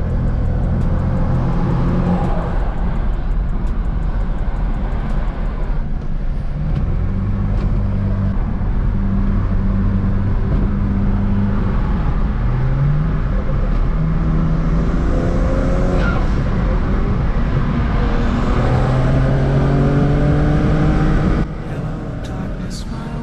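Tuned BMW N54 twin-turbo straight-six running under way, with its pitch rising in several pulls in the second half, then dropping off suddenly near the end.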